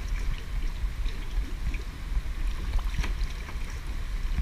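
Creek water rushing and splashing around a moving kayak, with a steady low rumble of wind on the microphone.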